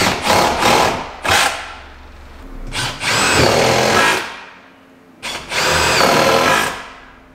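Power drill driving screws into wooden wall framing. There are a few short bursts at first, then two longer runs of about a second and a half each.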